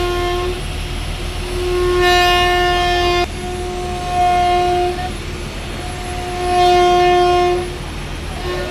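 A series of long, steady horn-like tones, each held for about one to two seconds with short breaks between them, over a low steady hum.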